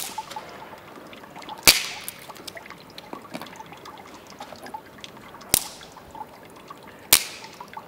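Four sharp clicks, spaced irregularly a few seconds apart, over faint background noise; the second is the loudest and rings briefly.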